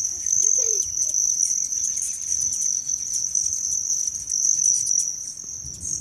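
A steady, high-pitched insect chorus that runs on without a break, with small faint chirps and clicks over it and a low wind rumble on the microphone.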